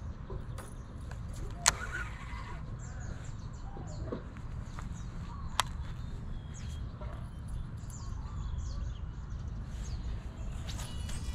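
Low wind rumble on the microphone with scattered faint bird chirps. Two sharp clicks come, one about two seconds in and one near six seconds, and there is a brief run of fast ticks near the end.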